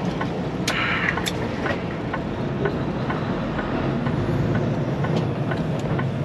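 Semi-truck engine running steadily, heard inside the cab while driving. There is a brief hiss about a second in and a light tick about twice a second.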